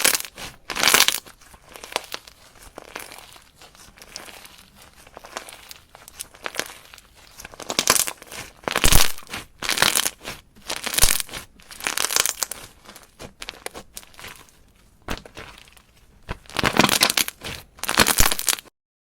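Slime being squeezed, stretched and poked by hand, a run of crackly, crinkling bursts with quieter sticky stretches between them; the sound cuts off suddenly near the end.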